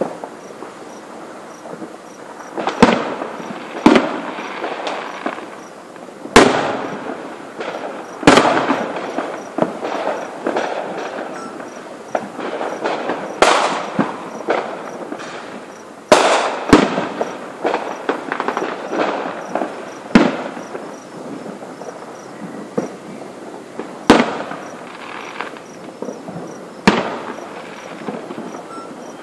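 Aerial fireworks shells bursting overhead: about ten loud booms spread irregularly, each trailed by smaller crackling pops and a fading echo.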